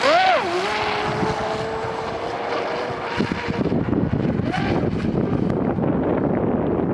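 Electric RC boat's brushless motor, driven by an Eachine SS 200A ESC on a 4S LiPo, whining as the throttle is punched: the pitch sweeps up and drops back, then holds a steady high whine as the boat runs off at speed. After about three seconds the whine gives way to a steady rushing noise of the hull and spray on the water.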